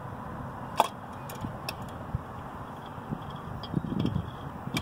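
Small handling clicks as a plastic chainsaw intake spacer is pushed onto its studs: one sharp click about a second in, a few lighter taps, and a short low rustle near the end.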